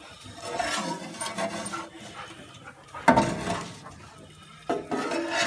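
Stainless steel spatula scraping and clattering on a flat-top griddle as hash brown rounds are pushed across it, the loudest scrape about three seconds in and another near the end.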